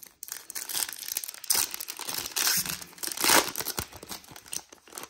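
A foil baseball-card pack wrapper being torn open and crinkled by hand: an irregular run of crackling and ripping, loudest about two-thirds of the way through.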